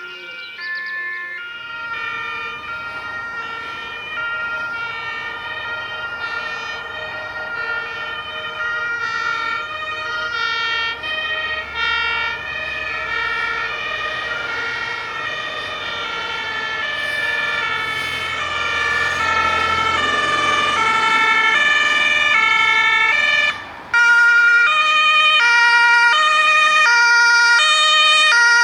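Several German fire engines' two-tone sirens (Martinshorn) sounding together, their alternating high–low notes overlapping out of step, over the rumble of the trucks' engines. A little before the end the sound breaks off briefly, and then a single two-tone siren sounds louder and clearer.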